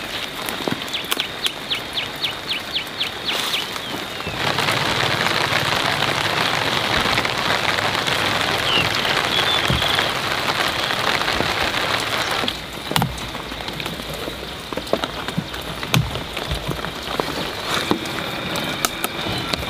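Steady rain falling on papaya leaves, a dense even patter that starts suddenly about four seconds in and cuts off suddenly after about eight seconds. Before and after it there are scattered light ticks and knocks.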